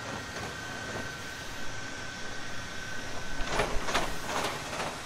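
Boston Dynamics' electric Atlas humanoid robot's motors whining steadily, then several clunks and footfalls starting about three and a half seconds in as it walks off.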